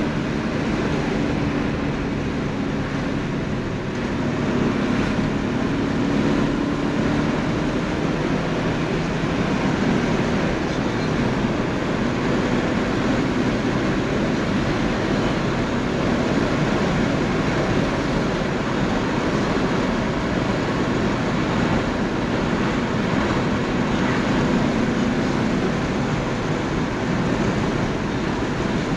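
Porsche 928 S's V8 engine running while cruising, heard inside the cabin under steady tyre and wind noise, its note shifting a little with the throttle.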